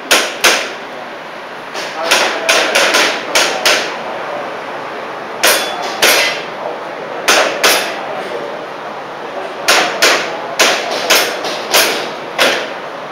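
Airsoft pistol being fired in quick strings of sharp cracks, about two dozen shots in clusters with short pauses between, over a background of voices.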